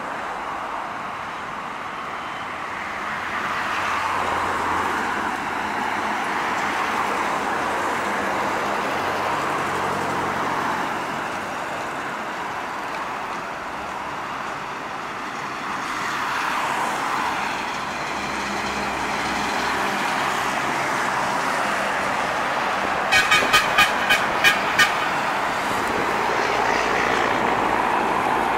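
Heavy cattle trucks and other traffic passing on a road, engines running and tyre noise swelling and fading as each vehicle goes by. About two-thirds of the way through, a horn gives a quick run of about seven short toots over two seconds.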